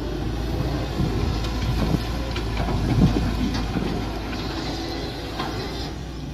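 Mini excavator working: its engine runs steadily, with a few metallic clanks and knocks, the loudest about three seconds in.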